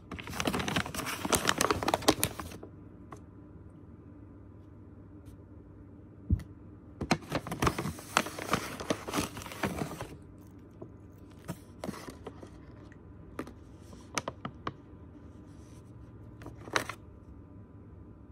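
Paper packaging rustling and crinkling in two bursts as it is handled, followed by scattered light taps and clicks.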